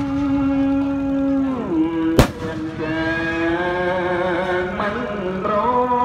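Music with long held notes that bend and waver in pitch, broken by a single sharp bang about two seconds in.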